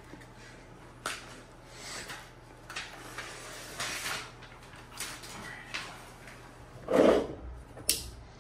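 Handling noises as a black adhesive letter insert is readied for the tailgate: a string of short rustles and scrapes, then a louder dull thump about seven seconds in and a sharp click just after.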